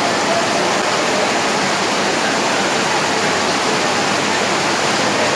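Heavy monsoon rain pouring down, heard from under the platform roof as a loud, steady hiss.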